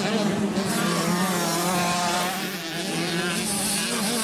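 Several 65cc two-stroke youth motocross bikes buzzing at high revs, their overlapping engine pitches rising and falling as the riders work the throttles through the jumps.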